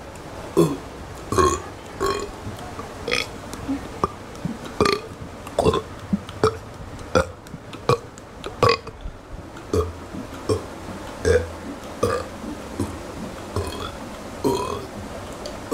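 A person burping over and over, short separate burps coming about one or two a second, brought up without drinking soda or water.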